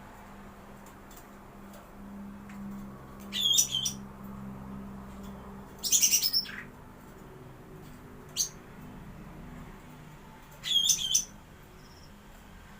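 Caged cucak ranting calling in short, high, sharp bursts, four times with pauses between, over a low steady hum.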